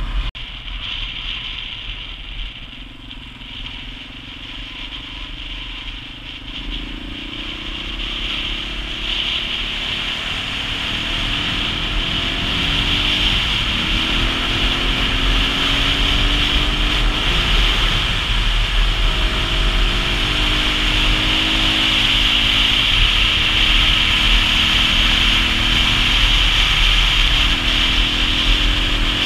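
Dual-sport motorcycle engine running on the road and getting steadily louder as the bike speeds up, its pitch rising and dropping back several times as it shifts up through the gears.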